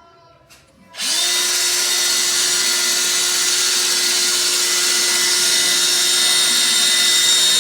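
Electric drill starting up about a second in and running steadily at one speed, boring a fixing hole into a plastered wall.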